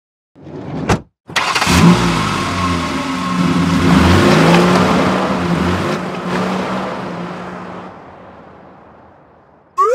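A motor vehicle's engine running loudly, rising and falling, then fading away over the last few seconds. A short rising sweep sounds at the very end.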